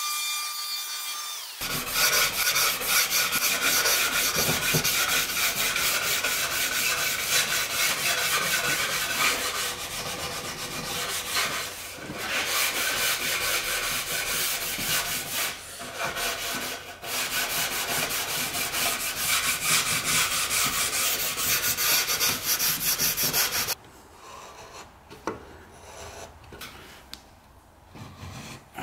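Continuous rasping and rubbing of a tool working a hardwood board, with a few short breaks. It stops about 24 seconds in, and light, quieter handling of the wood follows.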